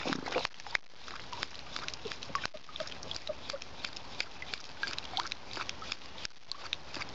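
An animal lapping water from a tub with its tongue: a quick, uneven run of wet laps and clicks, several a second.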